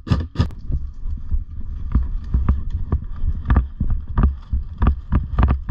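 Footsteps moving briskly through long grass, about three steps a second, over a heavy rumble of wind and movement on a head-mounted camera microphone.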